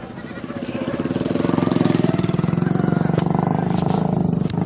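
A small engine running steadily, getting louder about a second in, with a few sharp clicks in the second half.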